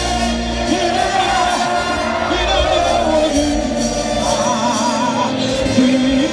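Live gospel worship music: voices singing into microphones over a band with keyboard, congas, drum kit and electric guitar. The lead voice holds a note with a wide vibrato about four seconds in.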